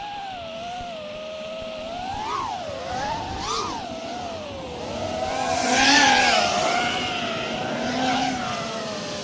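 5-inch FPV quadcopter's brushless motors and propellers whining, the pitch rising and falling with the throttle. The loudest moment is a throttle punch about six seconds in, with a rush of prop and air noise.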